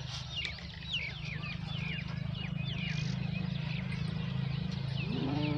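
Small birds chirping in quick, repeated short calls over a steady low hum. Near the end a low drawn-out call begins.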